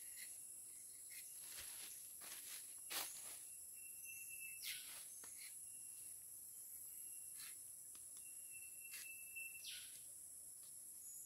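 Faint, steady high-pitched drone of insects in a tropical rubber plantation, with a thin whistling tone that comes and goes. A dozen or so short scratches and rustles are scattered through it as a rubber tapper works the knife along the cut on a rubber tree's bark.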